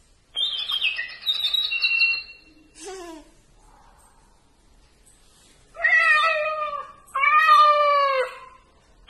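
Electronic talking reading pen playing a recorded cat meowing twice through its small speaker, each meow long and falling in pitch, triggered by touching the cat picture. Before the meows it gives a high-pitched electronic sound lasting about two seconds.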